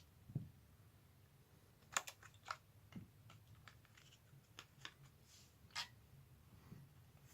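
Faint, scattered plastic clicks and light knocks of rechargeable AA batteries being taken out of an RC remote control's battery compartment and handled, with a soft thump near the start.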